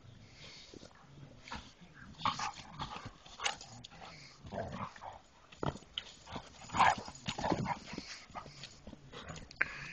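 Two dogs play-fighting, with short, irregular dog vocal noises that are loudest about seven seconds in.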